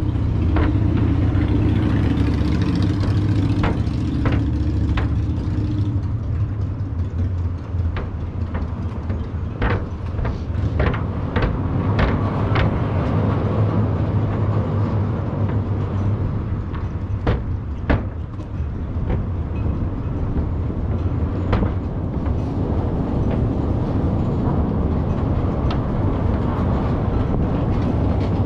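Cars crossing a steel truss bridge on its open steel grid deck: a steady low hum, with scattered sharp clicks and clunks.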